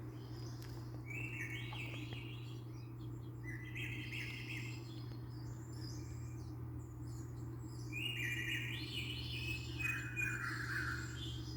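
Bird-like chirping ringtone or alert tone played through an iPhone 6s speaker, in short stepped chirp phrases about a second in and near four seconds, then a longer run from about eight seconds, over a steady low hum.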